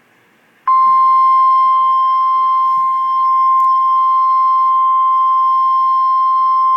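Emergency Alert System attention signal: a single steady, loud alarm tone of the NOAA Weather Radio kind, switching on suddenly just under a second in and holding unbroken. It marks the start of an emergency broadcast, here a tornado watch.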